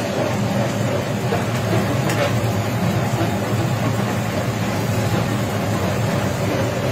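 Chicken frying on a flat-top griddle and being moved with a metal spatula, over a steady low mechanical hum.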